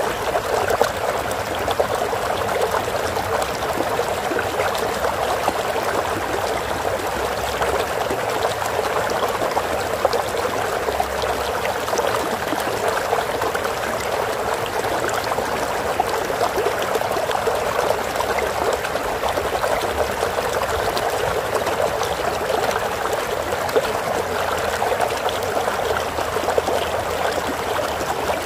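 Flowing water: a stream running steadily, with a dense, even trickling babble.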